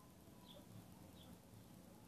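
Near silence: faint room hum with two faint, short, high chirps, about half a second and a little over a second in.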